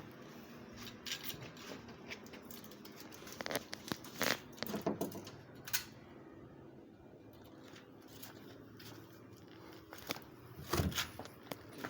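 Scattered clicks, scrapes and rustles, clustered about four to six seconds in and again near the end, with a quieter stretch between.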